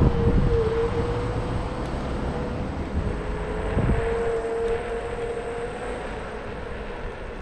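A vehicle moving along a street: a steady motor whine over low road rumble and wind noise, with a second, higher whine joining in for a few seconds midway.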